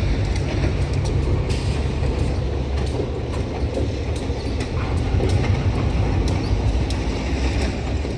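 Youngstown & Southeastern freight train rolling past, a steady low rumble with frequent sharp clicks of wheels passing over rail joints.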